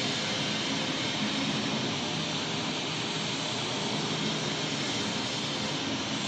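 Turntable pallet stretch wrapper running, with the turntable rotating the wrapped load: a steady, even machine noise with a hiss and a faint low hum, unchanging throughout.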